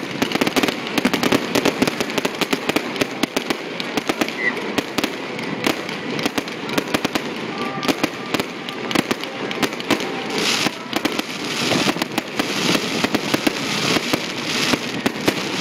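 Fireworks display going off in dense, continuous rapid popping and crackling, many bursts overlapping with hardly a gap.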